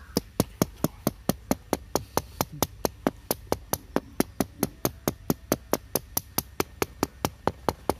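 Knife point stabbing rapidly through raw pizza dough and tapping the metal plate beneath, a steady run of about five sharp taps a second: docking the dough with holes before the sauce is spread.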